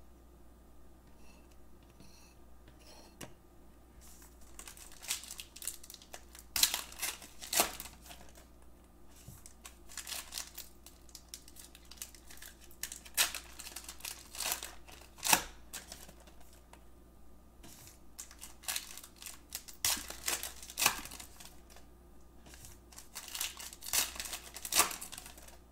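Trading card pack wrappers being torn open and crinkled in irregular, crisp rustles, starting about four seconds in.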